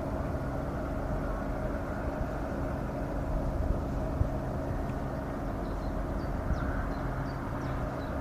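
Steady low mechanical drone with a constant hum in it, over an uneven low rumble. A few faint high chirps come in over the last few seconds.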